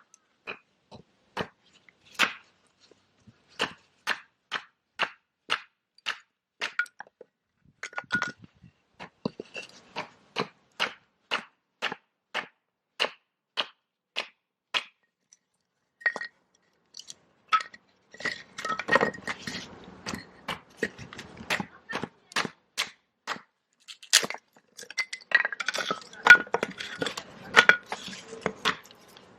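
Wood being split into kindling with a blade: sharp knocks about every half second, some with a brief metallic ring, for roughly half the time. After a pause comes a busier stretch of scraping and clinking.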